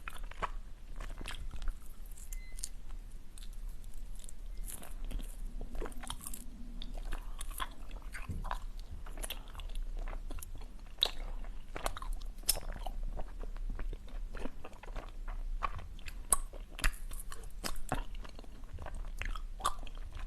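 Close-miked biting and chewing of ice: irregular, sharp crunches and crackles as the pieces break between the teeth.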